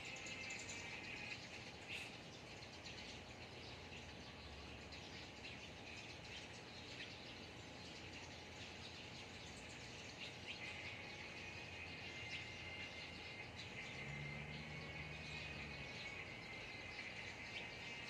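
Faint garden ambience: a steady high insect trill that drops out about a second in and comes back about ten seconds in, with scattered bird chirps.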